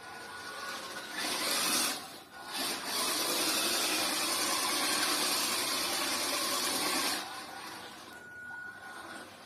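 Old QD toy-grade RC touring car's small electric motor and gears whirring as it drives across a tiled floor. The whirr starts about a second in, dips briefly near two seconds, and cuts out about seven seconds in.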